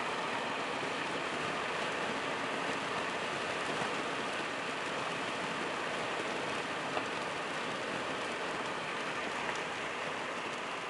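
Steady hiss of rain falling, heard through an open car window.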